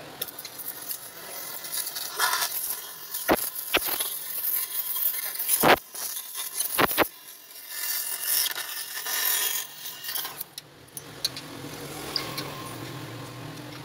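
Gas welding torch hissing as its flame heats a steel motorcycle silencer, with a handful of sharp metallic clinks in the middle.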